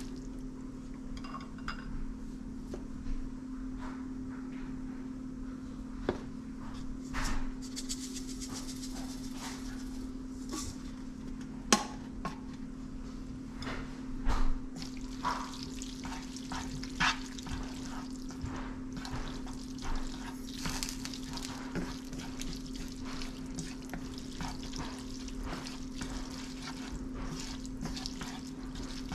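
Stovetop cooking: a utensil clicking and scraping against a pan in scattered strokes, the sharpest about twelve seconds in, with stretches of hiss from the pan over a steady low hum.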